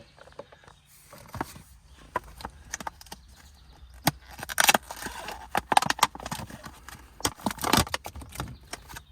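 Shift-knob packaging being opened by hand: irregular rustling with many small sharp clicks, and two louder bursts of rustling in the middle and near the end.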